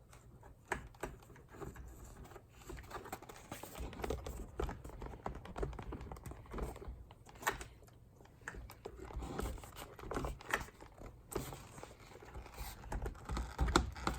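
Irregular light clicks, taps and rustling of hands working a sun visor's wire and plastic trim into place.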